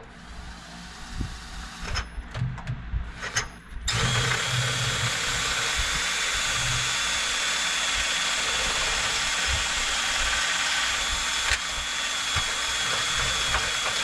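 Power drill boring a 9/16-inch hole through the steel rear axle spring pad of a 1952 Dodge Coronet. A few knocks as the bit is set in place, then about four seconds in the drill starts and runs steadily under load with a high whine.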